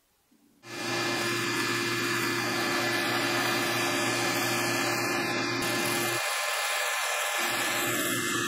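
Bandsaw running and cutting through a wooden lure blank, a steady motor hum under the hiss of the blade in the wood; it starts abruptly under a second in.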